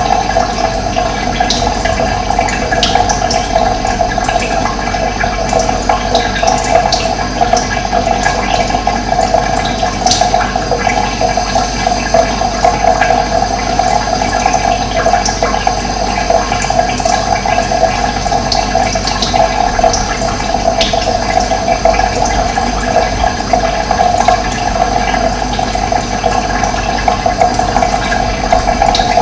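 Steady rush of running water, with occasional brief, faint bird chirps above it.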